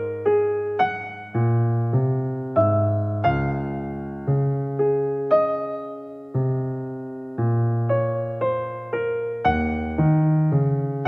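Slow solo piano background music: single notes and chords struck about once a second, each left to ring and fade.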